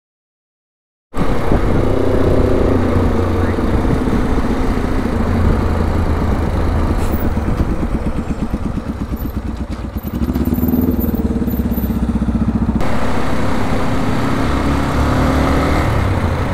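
After about a second of silence, a motorcycle engine runs while riding, its pitch rising and falling with the throttle, under heavy wind rushing over the microphone.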